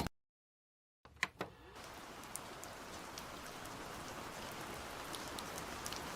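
Silence for about a second, then two quick clicks, then a steady hiss of falling rain with scattered drops that slowly grows louder.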